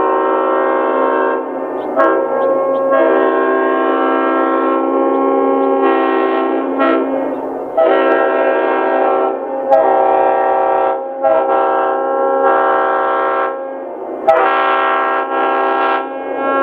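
Leslie RS5T-RF five-chime air horn, a 1978 unit with the standard 31/55 bell reversal, sounding a loud chord in a series of long and short blasts separated by brief breaks.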